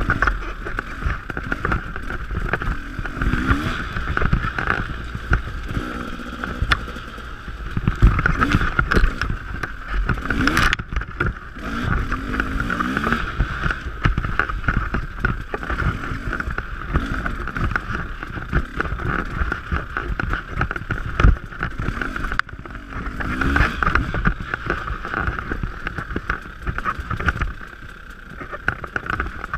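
Off-road dirt bike engine ridden along a twisting trail, its pitch rising and falling every few seconds as the throttle is opened and closed between turns, over a low rumble.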